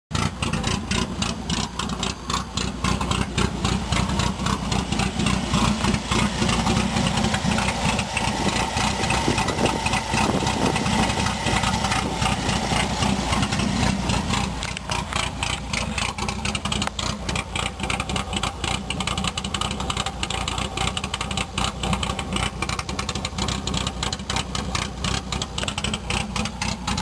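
Opel Kadett C engine idling roughly on its first run, the running uneven and lumpy. About halfway through, the low hum of the idle eases and the sound changes.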